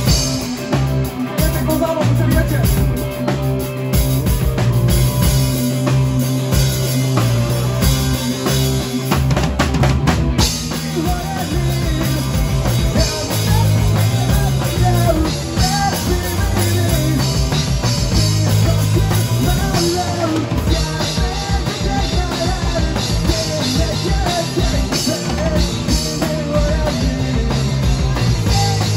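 Live rock band playing through amplifiers: electric guitars over a driving drum kit with bass drum and snare, the cymbals growing brighter from about ten seconds in.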